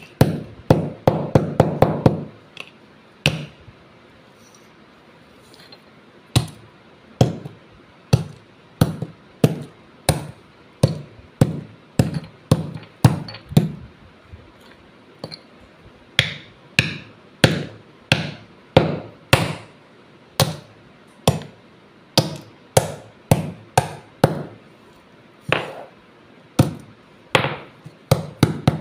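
Small fired-clay diyas being smashed on a hard stone floor: a quick flurry of cracking crunches at first, then single sharp cracks about once a second, with shards clattering.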